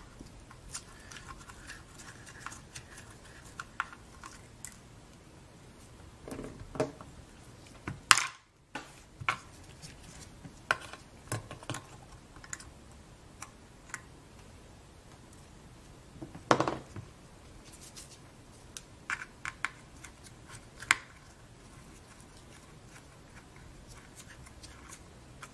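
Scattered small clicks and taps of metal tweezers and plastic pry tools against an opened iPad's frame and internal parts, with two louder knocks about eight and sixteen seconds in.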